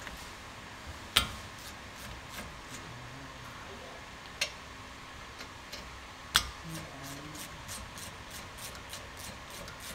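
Hand ratchet with a socket working a bolt on a brake caliper: light, fairly regular clicking, with three sharper metal clinks.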